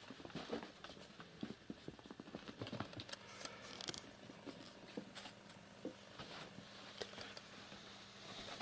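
Faint, scattered soft taps and scuffs of a cat's paws on a carpet as it bats at something on the floor.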